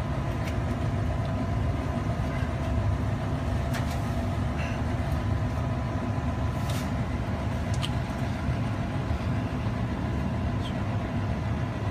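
Steady low mechanical hum, with a few short hisses from leak-detection solution being sprayed onto a gas pipe fitting.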